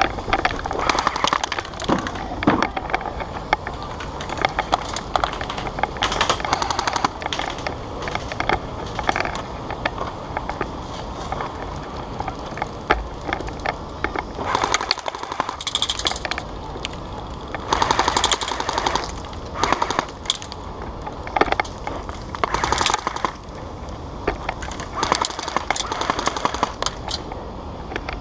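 Airsoft guns firing rapid bursts of BBs, a brisk clatter of shots running on and off through the whole stretch, with several louder bursts.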